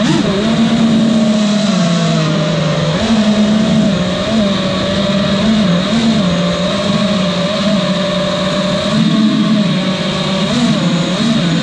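FPV freestyle quadcopter's four brushless motors (T-Motor F40 Pro4 1950kv on 6S, 5-inch Gemfan Hurricane props) whining, heard close from the onboard camera, the pitch stepping up and down with the throttle over a rush of prop wash and air.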